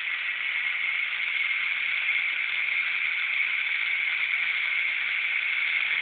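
Small electric motor of an Arduino-driven automatic curtain opener running steadily, a high, even noise.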